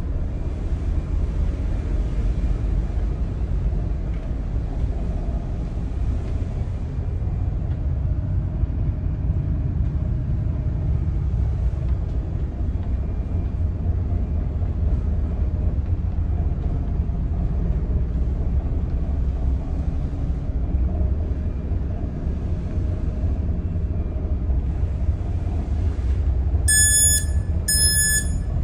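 Steady low rumble of a car carrier's machinery, heard on the ship's bridge. Near the end, a run of short, high electronic beeps from the bridge equipment starts.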